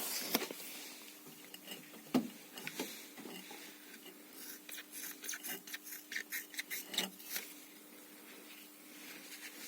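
Hands working strut-mount parts: scattered light knocks and clicks of metal, with a run of quick scraping strokes in the middle.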